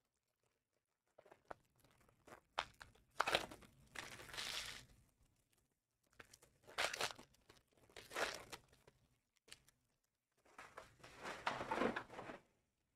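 Trading-card pack wrappers being torn open and crinkled by hand, in three rustling bursts of a few seconds each.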